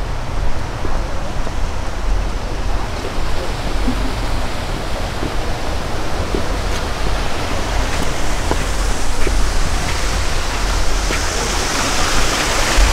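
Steady rushing noise with a deep, fluctuating rumble underneath. It grows louder and hissier near the end.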